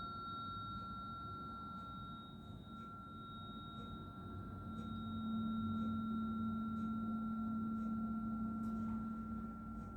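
A struck tuning fork ringing with a steady, clear high tone. About halfway through, a second, lower steady tone joins it and holds until near the end.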